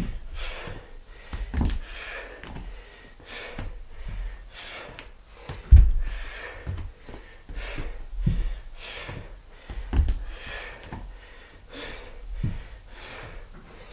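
A man breathing hard during lunges, with short breaths about once a second. Bare feet land with dull thuds on a wooden floor every few seconds; the loudest lands about six seconds in.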